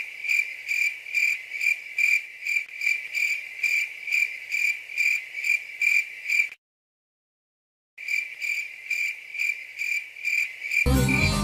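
Cricket chirping: an even run of high, clean chirps, about two or three a second, the stock 'crickets' effect that marks an awkward silence. It drops out completely for about a second and a half midway, then resumes until music comes in near the end.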